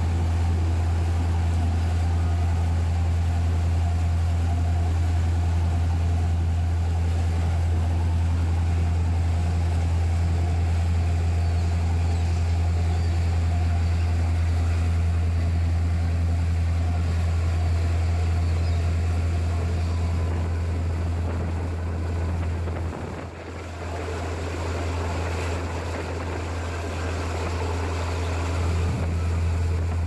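Sightseeing boat's engine running under way with a steady low drone, over the rush of the wake and wind; it dips briefly about three-quarters of the way through.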